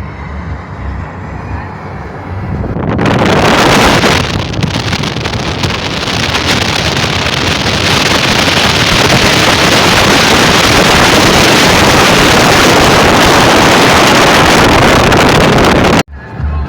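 Wind rushing hard over the microphone on a moving motorboat. It swells about three seconds in, stays loud and steady, and cuts off suddenly near the end.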